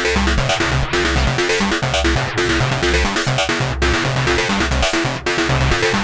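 Korg Volca synthesizer playing a looping electronic sequence: a steady bass line under a short repeating note pattern, with a brief break in the sound about every second and a half.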